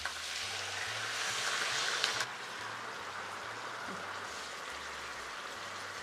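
Chicken pieces sizzling in a hot pan as white wine goes in and starts to cook off. The hiss swells for about two seconds, drops off suddenly, then settles into a steady, softer sizzle.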